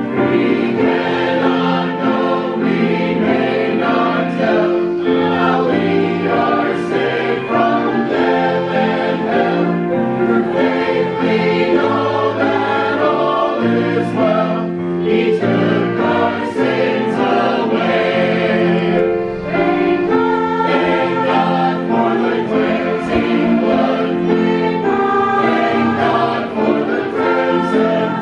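Mixed choir of men and women singing a hymn, with violin accompaniment.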